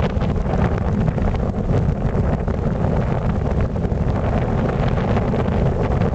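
Airflow rushing over the microphone of a camera carried in flight under a paraglider: a loud, steady, deep rumble of wind noise with no engine.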